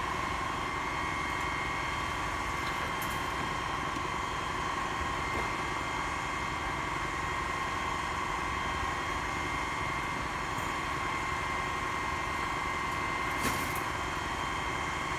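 Rear-load garbage truck's engine running at idle, a steady rumble with a constant high whine over it. A single light clack comes near the end.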